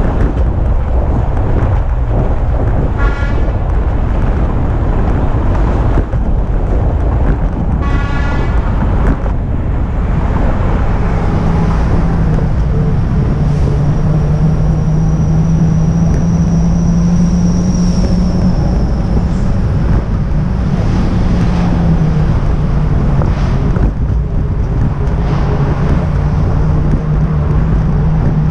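Wind rumbling on a moving camera's microphone over passing road traffic, with two short pitched toots about 3 and 8 seconds in and a steady low hum setting in about 11 seconds in.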